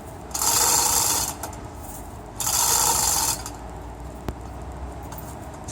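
Hand chain come-along being cranked under heavy load: two rasping strokes of its ratchet and chain, each about a second long and about two seconds apart, then a single sharp click near the end.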